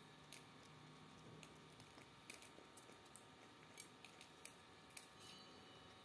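Faint, irregular small clicks and cracks of young Alexandrine parakeets' beaks picking and husking seeds from a steel plate and a hand, about ten in all over low steady room noise.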